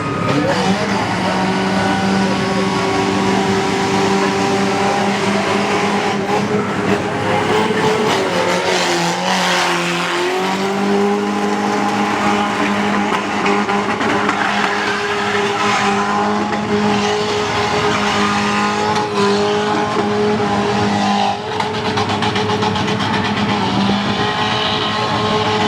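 Car engine held at high, steady revs during a burnout, with tyre squeal over it. The revs sag briefly about nine seconds in and climb back, then dip again near the end.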